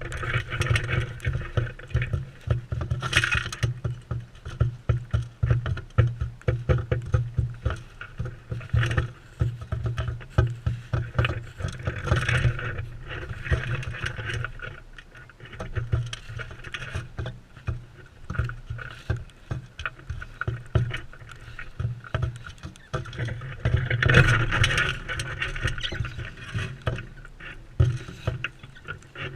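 Crimson rosellas feeding close to the microphone: dense, irregular clicking and knocking of beaks and feet on the feeder and cracking seeds, over a low rumble.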